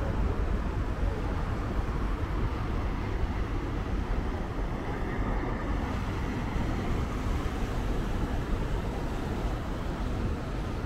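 Steady low rumble on board a moving sightseeing boat: the boat's engine and the water rushing past, even and unbroken throughout.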